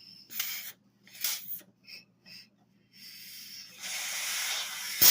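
Compressed air hissing from a rubber-tipped air gun held to a brake caliper to push the piston and its dust seal in: a few short puffs, then a longer, louder blast near the end.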